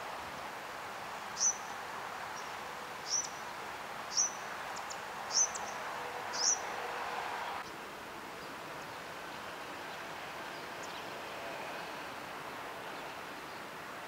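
Indian silverbills (white-throated munias) giving five short, high chip calls roughly a second apart, over a steady background hiss that drops a little just past halfway. A few fainter calls follow later.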